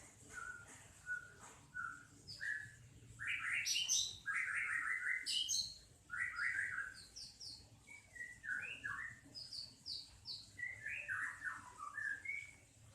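A small songbird singing: phrases of quick high chirps and rapid trills, repeated with short gaps.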